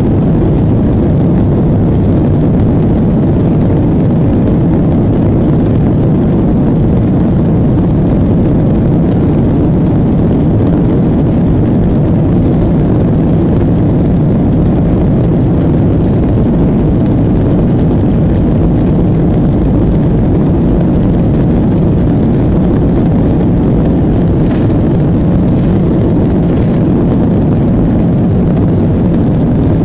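Boeing 737-700 on its takeoff roll, heard from inside the cabin: its CFM56-7B turbofan engines at takeoff thrust and the wheels on the runway make a loud, steady low rumble.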